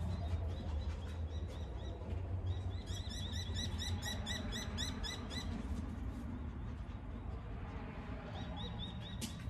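A bird calling with runs of short, high, repeated chirps, about four a second, over a steady low rumble.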